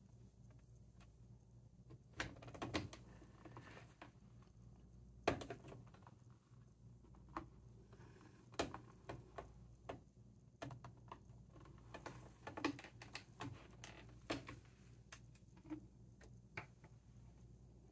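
Faint, irregular light clicks and taps of small craft supplies being handled and set down on a tabletop, over a low steady room hum.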